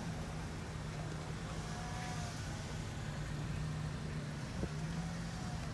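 A vehicle engine idling: a steady low hum over a haze of background noise.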